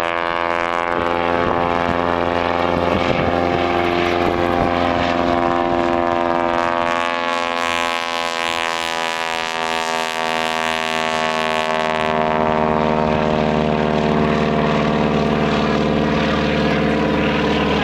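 Propeller biplane's piston engine and propeller droning steadily in flight. The drone takes on a sweeping, phasing quality as the plane passes close overhead about eight to ten seconds in, then settles back to a steady drone.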